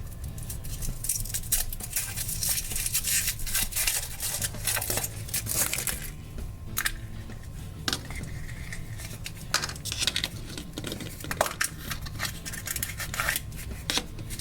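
Foil wrapper of a chocolate surprise egg crinkling and crackling irregularly as it is unwrapped and the egg is opened.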